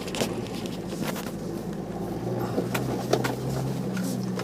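Jeep engine running at low speed on a rough trail, its hum growing a little stronger about halfway through, with scattered knocks and rattles from the vehicle bumping over the ground.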